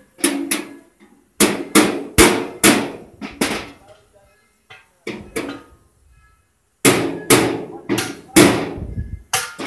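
Hammer blows on the metal cargo box of a motorcycle side-cart, struck in quick runs of a few blows with short pauses between. Each blow rings briefly.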